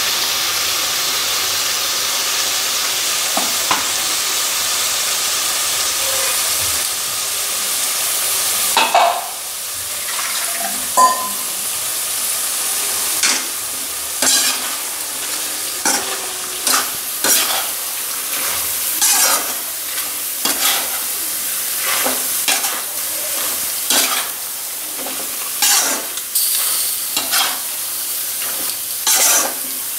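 Chicken frying in oil in a kadai, sizzling steadily. From about nine seconds in, a metal spatula scrapes and knocks against the pan over and over as the green ginger-garlic-mint paste is stirred through.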